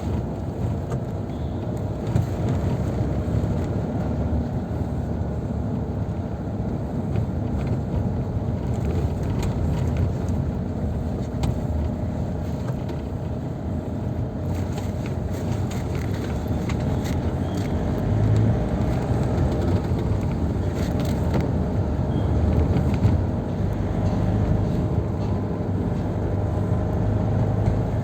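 Steady road traffic: motor vehicles running along a busy road, a continuous low rumble that swells a little about two thirds of the way in.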